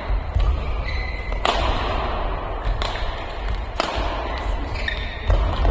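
Badminton rally: rackets striking the shuttlecock four times, about a second to a second and a half apart, with short shoe squeaks on the court floor between the hits.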